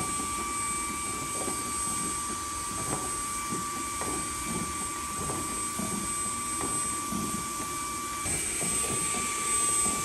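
MOOSOO U19 cordless vacuum's brushless motor running steadily with a high whine, while its brush attachment scuffs along window blind slats.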